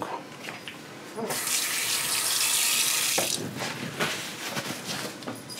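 Kitchen tap running for about two seconds, turned on a little over a second in and shut off abruptly, with a few light knocks and clinks around it.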